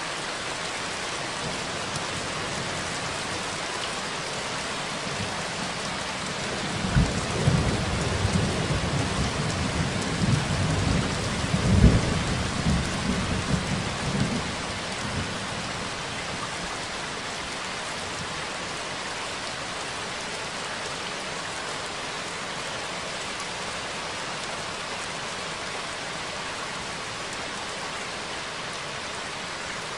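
Steady rain falling, with a roll of thunder that rumbles in about a quarter of the way through, swells to its loudest partway on, and dies away around the middle.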